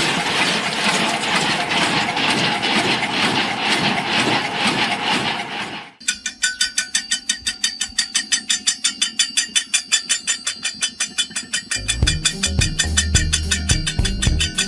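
A dense, steady rattling noise as mud and shells are shaken through a sieving rig. After a sudden cut, a hammer-head woodpecker toy on a coil spring pecks at a steel pipe: a fast, even run of ringing metal taps, about five or six a second. A bass-heavy music beat comes in under the taps near the end.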